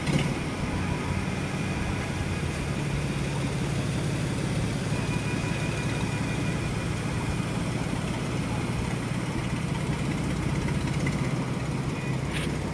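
A steady mechanical hum, like a small engine or motor running at a constant speed, over an even background hiss. A brief crackle comes near the end.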